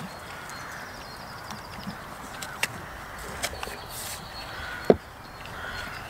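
Goats nibbling and chewing food from a person's hands: small scattered clicks and crunches over a steady outdoor background, with one sharp knock about five seconds in.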